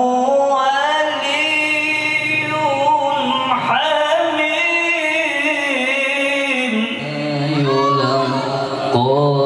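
A solo voice singing or chanting a slow melody in long, wavering, ornamented notes. A low steady tone joins underneath about seven seconds in.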